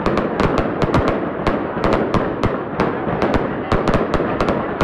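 Fireworks going off at close range: a rapid string of sharp bangs, several a second, over a steady din.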